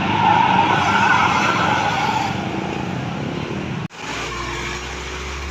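Bus passing close by: a loud rush of tyre and engine noise without horn notes. An abrupt cut about four seconds in leaves a steady low engine hum.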